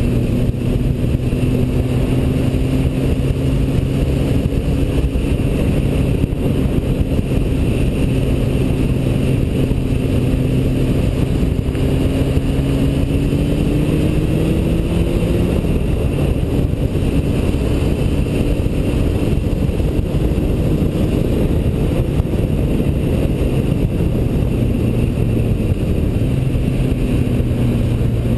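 Yamaha motorcycle engine running steadily at road speed under heavy wind and road noise. The engine note rises a little partway through, then settles again.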